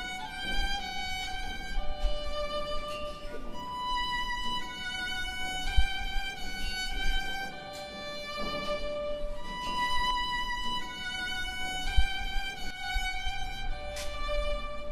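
Background music: a slow violin melody, one held note after another. Two dull low thumps come about six seconds apart.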